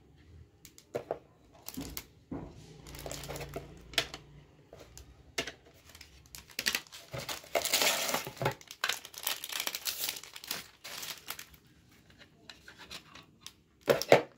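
Plastic wrapping crinkling and rustling as it is handled, with scattered clicks. The crinkling is densest around the middle, and there are two sharp knocks near the end.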